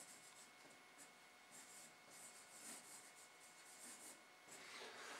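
Faint scratching of a marker writing on a whiteboard, in a series of short strokes.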